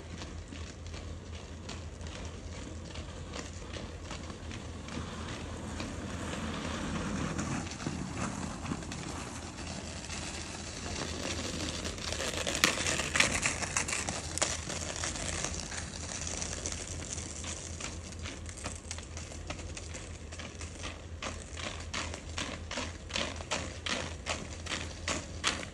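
Inline skate wheels rolling on rough asphalt, swelling loudest as a skater passes close about twelve seconds in. A quick run of clicks and ticks comes near the end.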